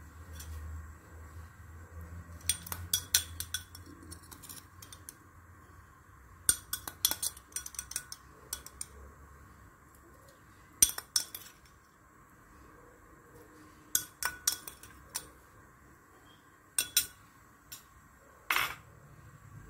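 Metal spoon clinking against a glass bowl and a stainless steel pot as sliced mushrooms are scooped out and dropped into the pot. The clinks come in several short, sharp clusters, with a longer one near the end.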